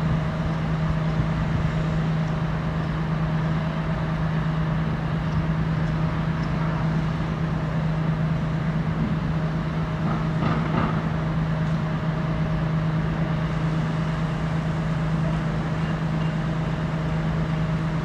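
Steady traffic noise with a constant low hum throughout.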